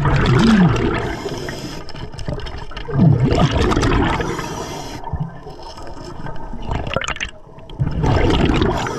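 Scuba diver breathing underwater through an Atomic regulator. Each exhale bursts out as a rush of bubbles, three times: at the start, about three seconds in, and near the end, with quieter stretches between.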